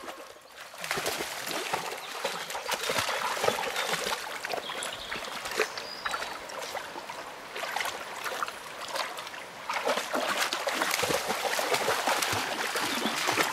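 Poodles wading and splashing through a shallow, rocky river, over the steady rush of the flowing water.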